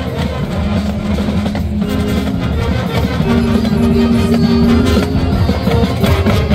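Marching band playing, with brass, drums and an amplified front ensemble: the brass holds long chords over steady drumming, growing louder in the second half.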